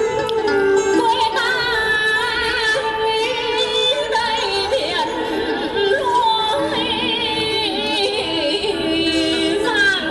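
Vietnamese traditional music for a water puppet show: a woman singing with a strong wavering vibrato over sustained traditional instruments.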